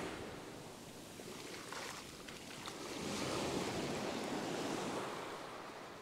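Small surf waves breaking and washing up the sand, with a wash swelling louder about three seconds in and easing off near the end.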